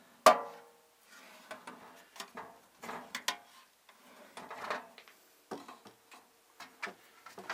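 Steel drawers of a Husky three-drawer toolbox being slid and pushed shut: a sharp metal clunk that rings briefly about a quarter second in, then lighter clicks and scrapes of the drawers on their runners.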